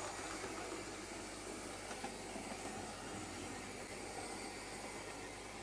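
OO gauge model tank locomotive running round a curve of track: a quiet, steady whir of its motor and wheels on the rails.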